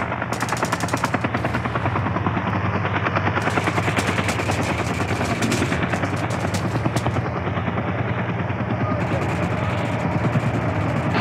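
Battle sound effects: stretches of rapid machine-gun fire over a low steady drone.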